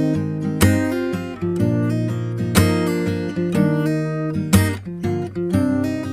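Background music: acoustic guitar strumming chords, with a strong strum about every two seconds and no singing.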